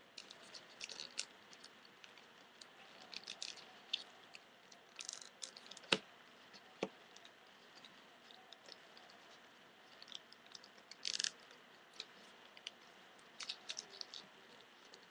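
Paper pieces of an origami ninja star being handled, folded and creased by hand: faint crinkling and rustling in short, uneven bursts, with a single sharp tap about six seconds in.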